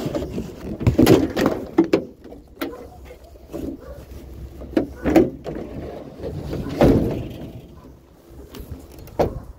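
Irregular knocks and clunks of items being handled and loaded, over a low, uneven rumble.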